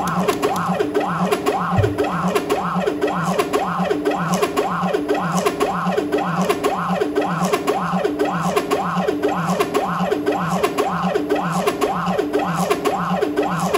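Stepper motors of a belt-driven CNC laser gantry whining as the laser head jogs rapidly back and forth along the X axis, the pitch rising and falling with each short move about twice a second. It is a maximum-rate test at 25,000 mm/min, and the axis runs without slipping.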